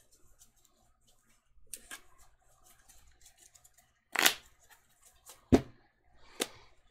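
Sleeved Magic: The Gathering cards being handled and shuffled: faint card rustles, a short loud rustle about four seconds in, then two sharp clicks.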